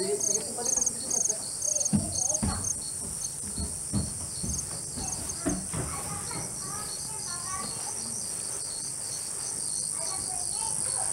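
A chorus of night insects: a steady high-pitched trill, with a chirp pulsing about three times a second that fades after the first few seconds. A few soft knocks sound in the first half.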